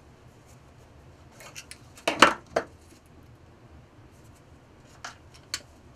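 Long-nose pliers clicking and clinking on stainless steel wire and metal bars as a nose loop is bent in the wire. There is a cluster of sharp metallic clicks about two seconds in, the loudest near the middle, and then a few lighter ticks near the end.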